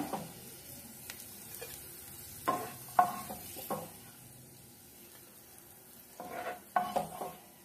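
Spoon scraping browned fried onion slices across a nonstick frying pan, a few strokes about two and a half seconds in and another cluster near the end, over a faint sizzle of hot oil.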